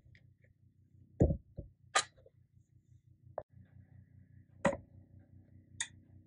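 Scattered light knocks and taps from handling kitchenware, about six spread over a few seconds, over a low steady hum.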